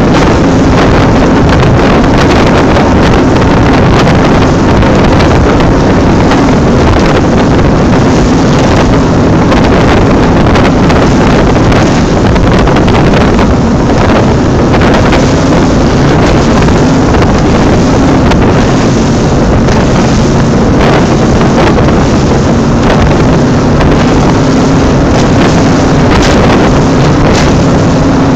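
Cigarette-type offshore powerboat running at speed, its engines a loud steady drone under the rush of wind on the microphone.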